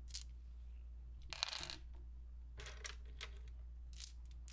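Handful of polyhedral dice clicking and clattering against each other and a wooden tabletop in several short bursts, the loudest about a second and a half in.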